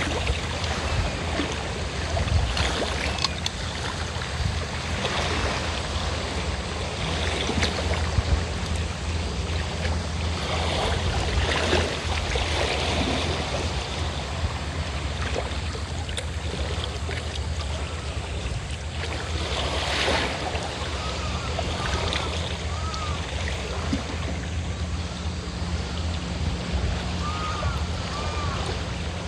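Sea waves washing and surging against the shore, over the steady low drone of a fishing boat's engine.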